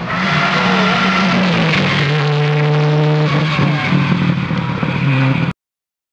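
Subaru Impreza rally car's engine at high revs as it passes at speed, its pitch dropping about two seconds in and then holding a steady note as it pulls away. The sound cuts off suddenly near the end.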